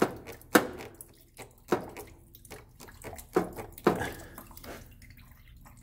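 Sharp clicks and knocks as a stuck rubber transmission cooler hose is wiggled and worked off its radiator pipe with red hose-clamp pliers: four louder clicks spread over the first four seconds, then quieter handling.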